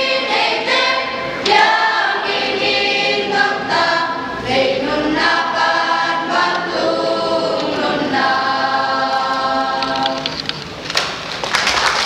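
Church choir singing a hymn in harmony with held notes. The singing stops near the end and a rush of noise follows.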